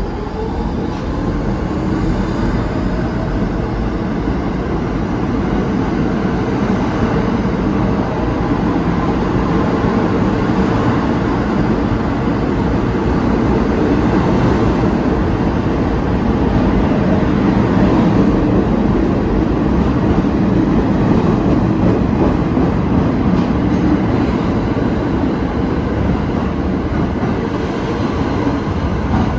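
New York City subway train pulling out of the station and running past at close range. Its motors whine up in pitch as it starts, then comes a steady rumble of the cars rolling by, loudest about two-thirds through.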